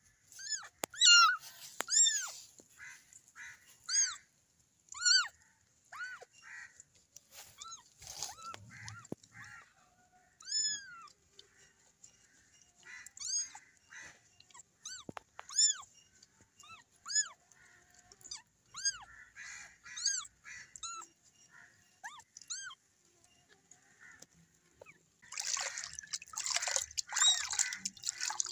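Newborn kittens mewing over and over in short, high-pitched cries while being washed in water. Near the end, water splashes in the basin.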